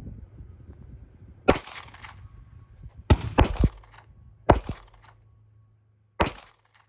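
Pistol firing five shots at an uneven pace, two of them in quick succession about three seconds in.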